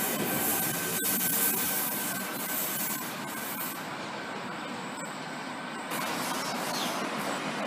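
Double-deck V set electric train pulling out along the platform, a steady noise of wheels on rails. About six seconds in the sound changes abruptly to another V set approaching.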